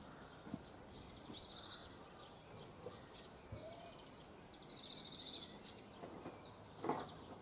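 Quiet outdoor ambience with small birds chirping and giving short rapid trills several times, and a single soft knock near the end.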